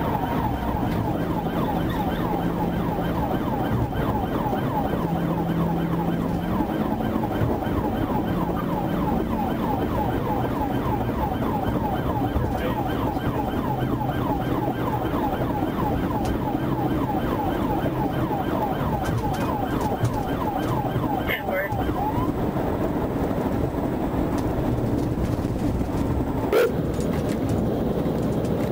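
Police cruiser's siren sounding in rapid, evenly repeating sweeps over the car's engine and road noise, heard from inside the cruiser during a pursuit.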